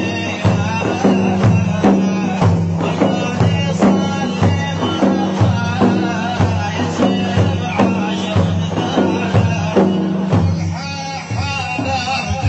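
Middle Eastern folk music from an Iraqi madih (praise song) with a steady drum beat, about two beats a second, under held melody notes.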